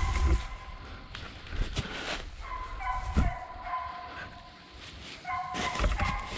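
Deer-hunting hounds baying in long, drawn-out, steady howls on the trail, several times, with a few dull thumps of handling near the start.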